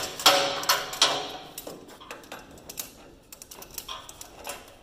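Hammer tapping on vice grips clamped to a key stock on a combine's threshing-cylinder shaft, sharp metal-on-metal clinks: a few hard strikes in the first second, then lighter, sparser taps as the key is worked out of its keyway.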